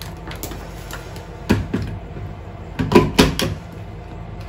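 Hard plastic clicks and knocks from a hand blender being fitted onto its chopper bowl and its button pressed, a few sharp ones about a second and a half in and a quick cluster around three seconds. The motor never starts: the blender isn't plugged in.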